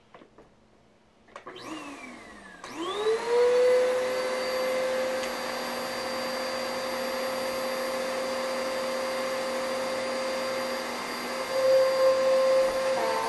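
Vacuum cleaner switched on about two and a half seconds in, its motor whine rising quickly to a steady pitch and then running steadily. Near the end the note wavers and grows louder.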